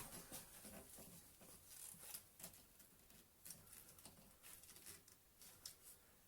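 Faint, scattered light taps and scratches of handwork: a plastic drill clamp being handled against a wooden workbench while its mounting holes are marked.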